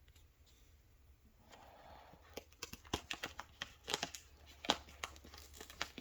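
A package being torn open and crinkled by hand. It is nearly quiet for the first second and a half, then there is a run of sharp crackling rips and crinkles.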